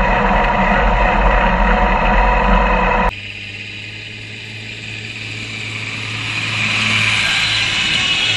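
International 1086 tractor's six-cylinder diesel running under load with a New Holland 7450 disc mower-conditioner cutting hay, heard loud and close from the mower for about three seconds. The sound then drops suddenly and builds again as the tractor and mower approach and pass close by.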